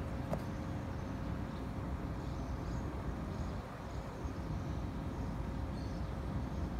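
Steady low rumble and hiss of outdoor background noise, with a faint steady hum, a brief click just after the start and a few faint high chirps.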